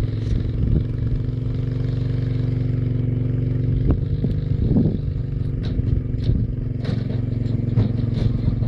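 Quad bike engine running steadily at an even pitch as it drives slowly towing a small trailer, with a few light knocks and clatter in the second half.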